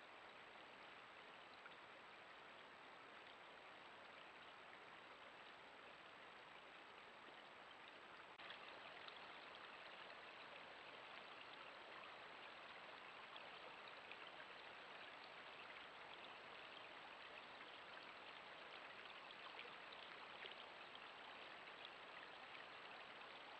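Faint steady trickle of flowing water, with a thin high whine beneath it; the water sound becomes a little louder and more crackly about eight seconds in.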